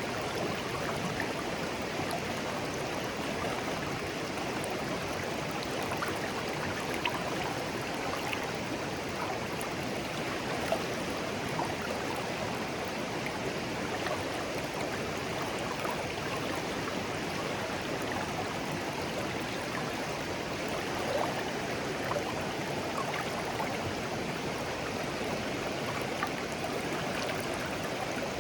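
Shallow clear stream flowing gently over stones: a steady babbling rush with small splashes and gurgles scattered through it.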